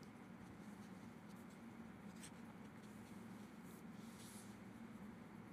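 Pencil drawing on a large sheet of paper pinned to an easel: several faint, short scratching strokes over a low room hum.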